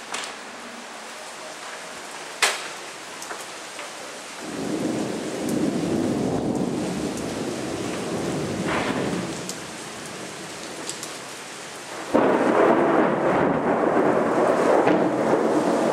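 Thunderstorm: rain falling steadily, with a roll of thunder building about four seconds in and fading. A louder crack of thunder breaks suddenly about twelve seconds in and keeps rumbling.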